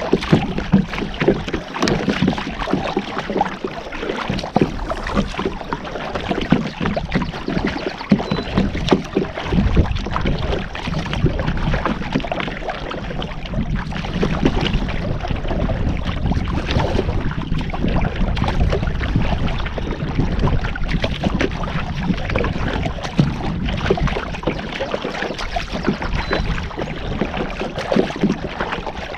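Water splashing and sloshing around a kayak as it is paddled, with frequent small knocks and taps throughout.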